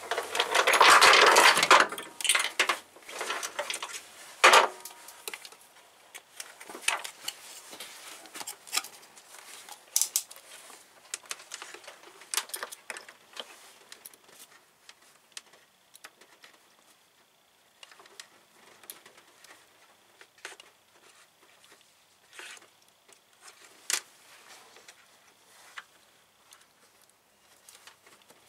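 Battery cables and terminal hardware being handled by hand: scattered light metallic clicks and clinks with pauses between them, after a louder rustling in the first couple of seconds.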